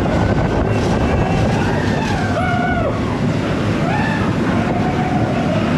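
Theme-park ride vehicle running along its track in the dark: a loud, steady noise with wavering higher tones over it.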